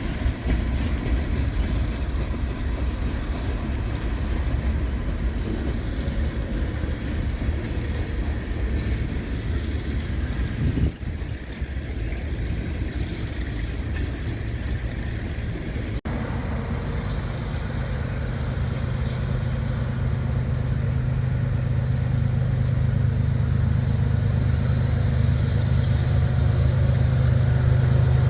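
Freight train rolling past, with steel wheels and cars rumbling on the rails. About halfway through the sound cuts to diesel locomotives approaching: a steady low engine drone that grows gradually louder.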